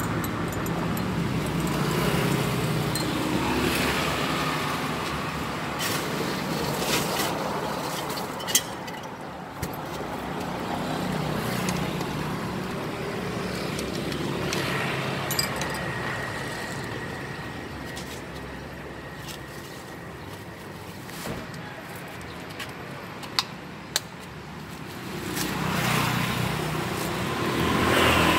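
Street traffic passing by, engine rumble swelling and fading, loudest near the start and again near the end. A few short sharp clicks and clinks come in the middle.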